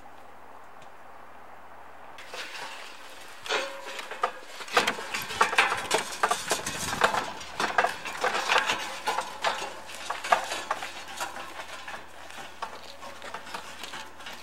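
Irregular clattering, knocking and clinking from a loaded wooden handcart being moved over a rough dirt trail. It starts about two seconds in, is loudest through the middle and thins out near the end.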